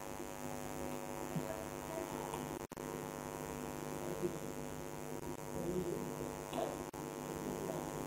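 Steady electrical mains hum, a buzz with many evenly spaced overtones, cutting out for an instant about two and a half seconds in and again near the end.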